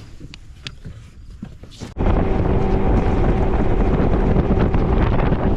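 Wind buffeting the microphone on a small boat: a loud, steady rush with a low steady hum under it, starting abruptly about two seconds in after a quieter stretch of light clicks and taps.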